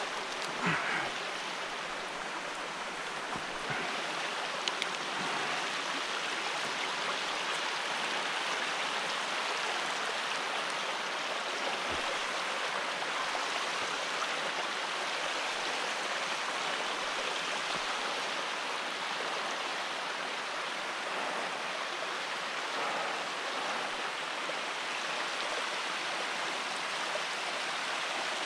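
Steady rush of running water, even and unbroken, with a couple of faint knocks in the first few seconds.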